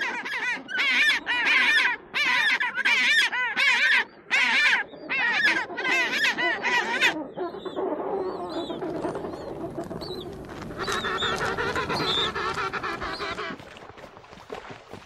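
Penguins calling: a run of loud, rapid honking call notes in short bursts for about seven seconds, then a quieter, overlapping mix of lower and higher calls that fades near the end.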